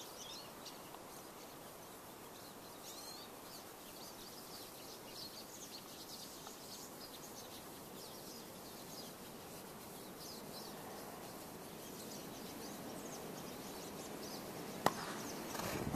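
Faint, still woodland air with scattered short, high bird chirps throughout. A single sharp click about fifteen seconds in.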